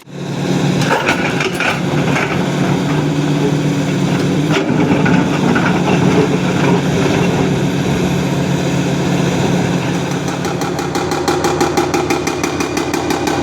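Construction machinery engine running steadily, with one sharp knock about four and a half seconds in and a fast rhythmic pulsing building from about ten seconds in.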